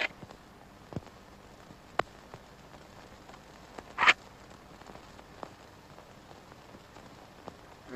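A break in the music on an old cartoon soundtrack: low steady hiss with a few scattered clicks, and one short, sharp crash about four seconds in.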